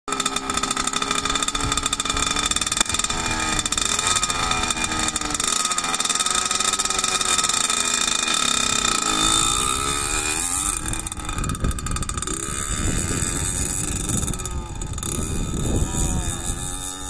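1982 Yamaha YZ80's two-stroke single-cylinder engine running and revving, its pitch rising and falling repeatedly over the first ten seconds or so. The engine is freshly rebuilt with a new piston and is being run in gently.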